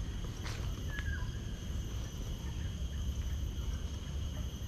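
Steady high-pitched insect trill, with a couple of short falling bird chirps about a second in. A sharp click about half a second in and a constant low rumble run beneath.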